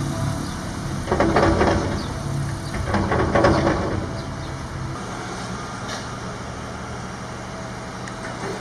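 Motor vehicle rumble, with two louder noisy surges about a second and three seconds in, then settling to a quieter steady hum.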